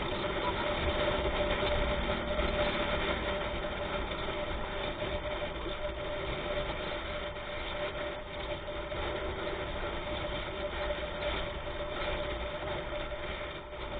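Steady running noise of a moving vehicle: engine hum mixed with wind and road rush, with a constant faint whine.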